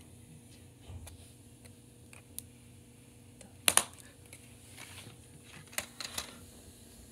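A plastic DVD case being handled. A quick pair of sharp plastic clicks comes about halfway through as the case snaps shut. A few more clicks and knocks follow near the end as the case is picked up.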